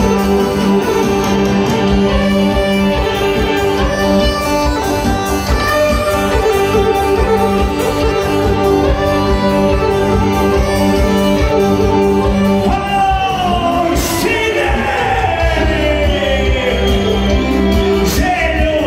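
A live band plays loud kolo folk dance music with singing over a steady, even beat. In the last few seconds the melody slides downward in falling runs.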